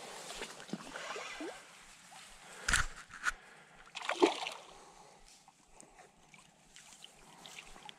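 A hooked chub thrashing at the surface close to the bank as it is played in on a spinning rod, with a few sharp splashes between about three and four and a half seconds in.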